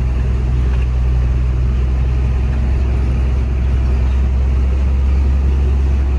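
Cargo truck's diesel engine running at low speed, heard from inside the cab as the truck rolls slowly: a steady low rumble.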